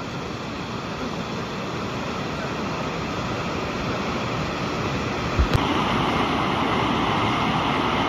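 Steady rush of pumped, churning water in a water-park rapids channel. After a short click about five and a half seconds in, it gives way to the louder steady rush of a sheet-wave surf simulator.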